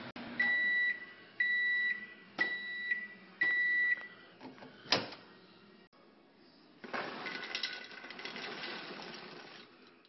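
Microwave oven beeping four times, about one beep a second, as its cooking cycle ends. A sharp click follows about five seconds in, then from about seven seconds in the paper popcorn bag rustles as the popped corn is shaken out of it into a bowl.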